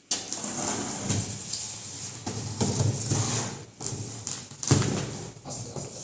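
Irregular knocks and scraping, about one sharp knock a second, from parts and packaging being handled.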